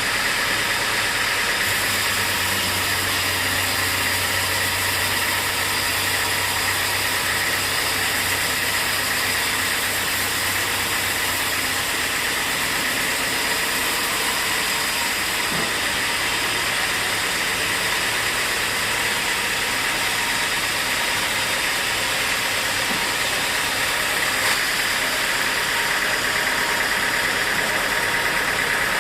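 Sawmill machinery running steadily: an even, hissing mechanical noise with a steady high whine, and a low hum through the first dozen seconds.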